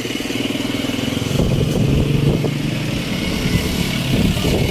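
A motor vehicle engine running, growing louder and rougher about a second and a half in.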